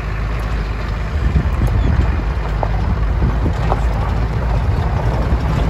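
Car driving, heard from inside with wind rushing in through a side window stuck half open: a steady heavy low rumble of wind and road noise that grows a little louder about a second in.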